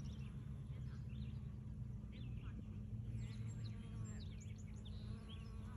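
Small birds chirping and twittering in short, scattered calls, busier in the second half, over a steady low hum.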